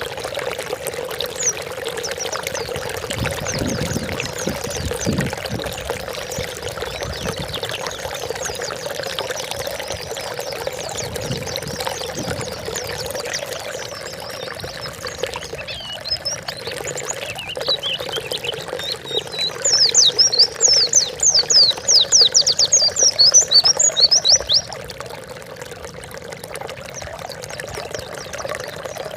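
White-eye (pleci) song: scattered high chirps, then a loud, fast run of high falling notes that lasts about five seconds, two-thirds of the way through. Under it all runs a steady sound of running, pouring water.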